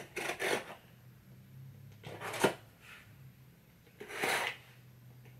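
X-Acto craft knife slicing open a cardboard shipping box: three short scraping cuts, about two seconds apart.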